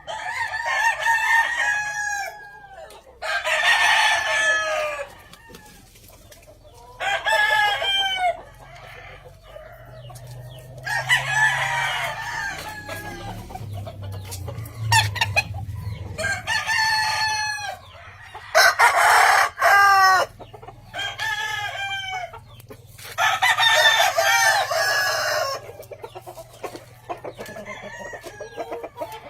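Roosters crowing in turn, about eight crows each lasting one to two seconds, with quieter gaps between them.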